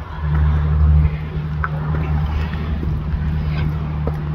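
Steady low rumble of wind buffeting a phone's microphone, with a few faint ticks from footsteps and handling as someone climbs a wooded slope.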